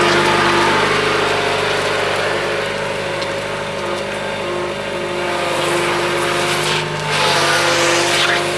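UniCarriers 711 skid steer loader engine running steadily. Its note eases off slightly in the middle and picks up again about seven seconds in, with a brief rush of noise.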